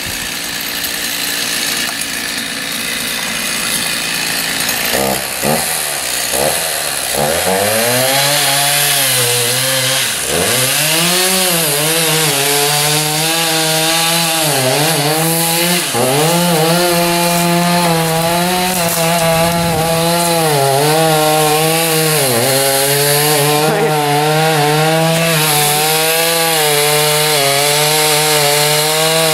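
Chainsaw making the felling cut through the base of a tree trunk behind the notch. About five seconds in, the engine pitch climbs, then dips and recovers again and again as the chain bogs in the wood.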